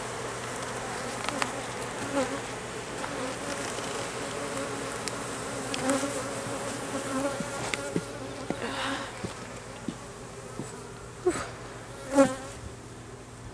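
Honeybees buzzing around an open hive: a steady hum, with single bees flying close past and swelling up and fading away several times. A few light sharp clicks and knocks come from the wooden frames being handled and slid back into the box.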